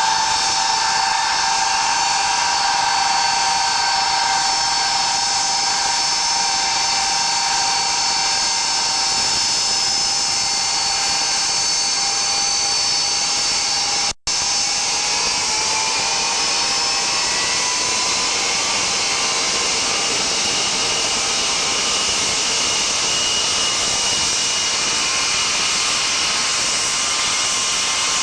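Ilyushin Il-76TD's four Soloviev D-30KP turbofans running as the freighter taxis: a loud, steady high-pitched whine over jet rush. The sound drops out for an instant just after halfway, and afterwards the whine tones climb slightly in pitch.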